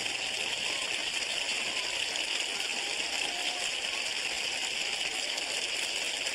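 Studio audience applauding: a steady, even clapping that holds at one level throughout.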